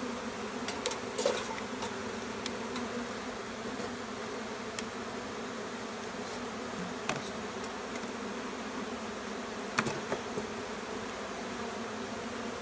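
A honeybee swarm buzzing steadily en masse, disturbed by being moved into a new hive box. A few sharp clicks sound over the hum, the loudest about a second in and near ten seconds.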